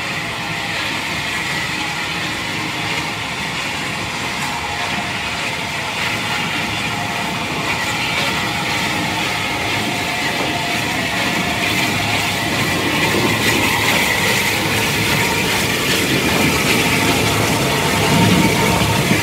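Unrebuilt Bulleid Battle of Britain class three-cylinder steam locomotive moving slowly past, with a steady hiss of steam from around its cylinders. It grows louder as the engine comes closer, and a low rumble of the engine and wheels joins in near the end.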